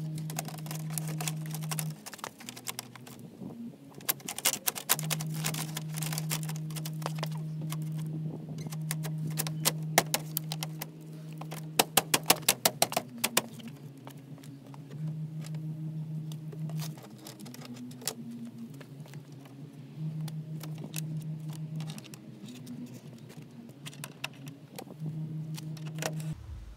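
Clicking and rattling of hard plastic and metal car parts being handled as a headlight assembly is refitted, in quick clusters with the loudest burst of clicks about halfway through. A bass line from music plays steadily underneath.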